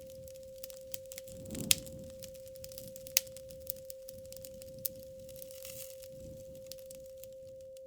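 Wood fire crackling with irregular snaps and two loud pops, about two and three seconds in. A steady pure tone is held underneath throughout.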